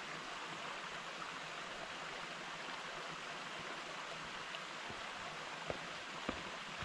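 Small woodland waterfall running with only a little water: a steady rush of falling water. Two brief knocks come near the end.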